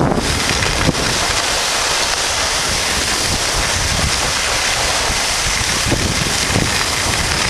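Steady, loud rush of wind buffeting the camera's microphone while skiing downhill, mixed with the hiss of skis sliding over groomed snow. A short knock about a second in.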